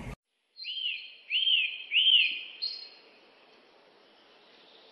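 Bird chirping: three arching chirps about two-thirds of a second apart over a thin high whistle, fading out after about two and a half seconds.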